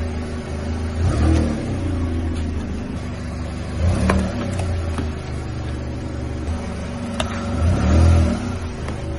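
Car engine idling and revving up briefly three times as the car creeps forward. Its tyre crushes small cardboard and plastic objects with a few short sharp cracks.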